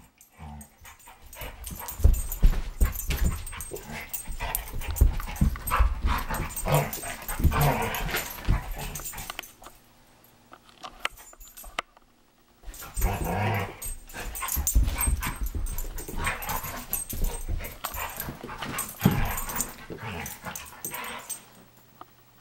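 Airedale terrier playing with a ball, making short growling and whining noises among knocks and thumps of the ball and its paws on the floor. It goes quiet for a couple of seconds about halfway through.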